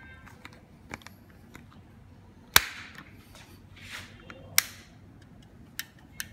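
Hard plastic clicks and snaps from an X-Shade bike phone holder as its clamp and cradle parts are pressed and fitted together by hand: two loud sharp snaps about two seconds apart, with softer clicks and a brief rustle between them.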